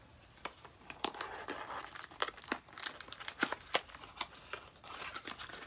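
Paper wrapping crinkling and tearing as a small gift box is unwrapped by hand, a run of irregular sharp crackles that is busiest in the middle.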